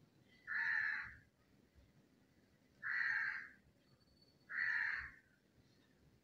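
A crow cawing three times, each caw harsh and about half a second long, roughly a second and a half apart.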